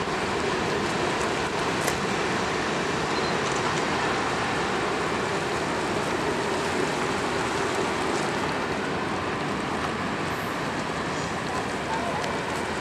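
Providence and Worcester freight train rolling away, a steady wash of wheel-on-rail noise that slowly fades as it recedes, with a few faint clicks.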